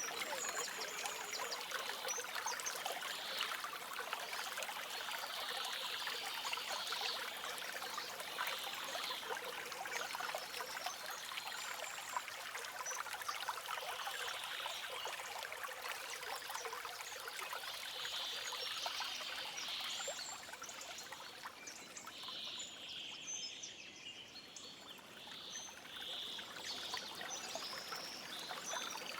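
Small forest stream trickling and splashing steadily over stones, with soft birdsong chirping above it. The water dips a little quieter for a few seconds about two-thirds of the way in.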